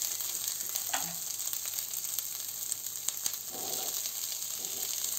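Chopped onion and green capsicum sizzling steadily in butter in a non-stick wok over a high flame, with a wooden spatula stirring now and then. About three and a half seconds in, chopped mushrooms are tipped into the pan and land in the frying vegetables.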